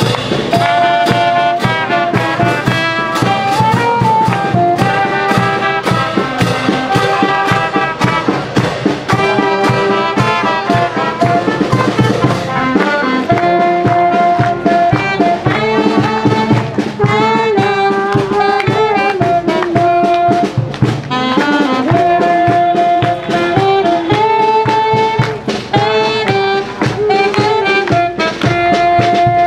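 Brass band playing a tune, trumpets and trombones carrying the melody over a steady beat of drums and cymbals.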